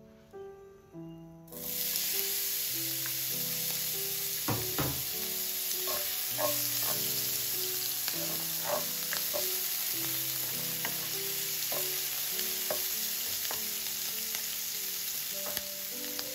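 Hot olive oil in a frying pan bursts into a loud sizzle about a second and a half in as chopped meat goes in, then fries steadily. Occasional clicks of a utensil against the pan come through it, over soft piano music.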